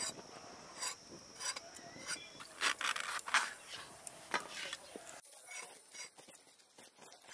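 Pointed gourds (potol) being halved lengthwise against the upright blade of a boti: a run of short crisp cuts and scrapes, about one every half second, thinning out near the end. A faint steady high tone runs behind them.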